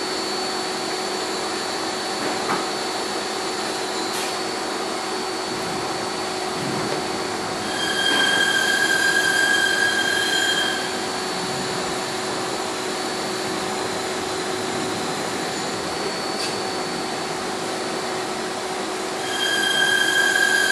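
A steady workshop hum and hiss, with a high motor whine twice for about three seconds each, about eight seconds in and near the end, as a powered precision screwdriver drives M1.7 screws into a Canon EF 16-35mm lens barrel.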